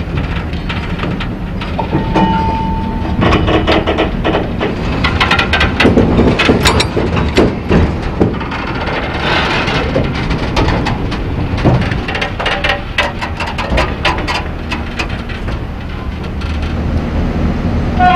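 Freight train wagons rolling on rails: a steady low rumble with many irregular clanks and clicks from the wheels and couplings, and a brief high tone about two seconds in.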